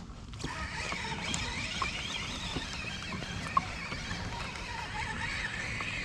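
Water and wind noise around a kayak on open water, with a faint wavering whine throughout and one sharp tick about three and a half seconds in.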